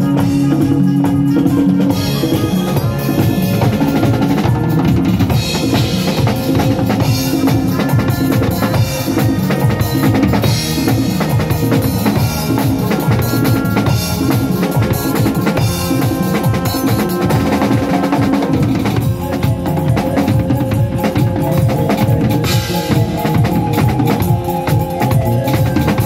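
Live band jamming: a drum kit played steadily with kick drum, snare and cymbals over held notes from other instruments. In the first couple of seconds hand drums, tabla and congas, are heard.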